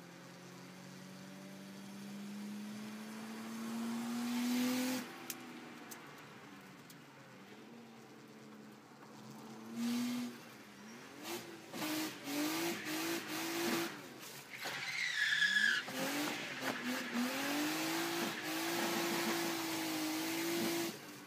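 RB25DET-swapped Nissan 200SX (S13) engine heard from inside the cabin: it climbs steadily through the revs for about five seconds, drops off, then is blipped up and down in quick swings. About fifteen seconds in the tyres squeal briefly, and the engine is then held high with short repeated dips near the end.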